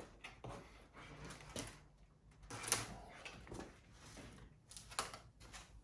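Faint, scattered clicks and knocks of parts being handled, the sharpest about three seconds in and again near five seconds.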